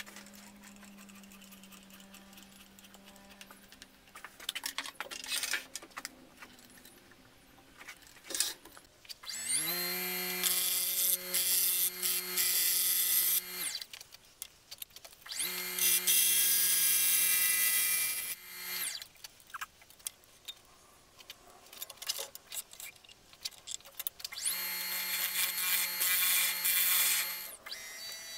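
Axminster woodturning lathe run up three times, a few seconds each, its motor whine rising in pitch as it starts and stopping abruptly. Over the whine is the hiss of a drill bit in the tailstock chuck boring into the centre of the spinning spalted wood blank. Before the first run there are light clicks and knocks of handling.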